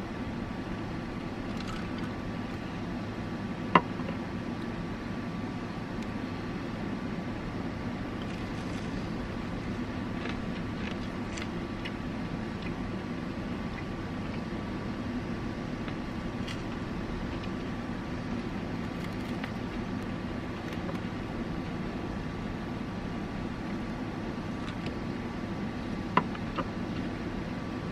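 A steady low hum with a faint high whine, and a few sharp clinks of a metal spoon against a metal cup of ice: one loud clink about four seconds in and two quicker ones near the end.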